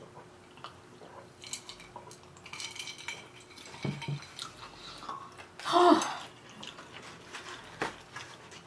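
Eating-table sounds: a sip from a clear plastic cup, then light clicks and rattles of the cup and foam takeout containers. About six seconds in comes a short voiced hum, the loudest sound.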